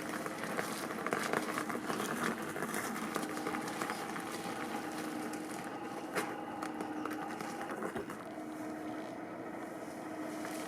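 Honda CR85's 85cc single-cylinder two-stroke engine idling steadily as it warms up after a cold start, with a few light clicks over the running note.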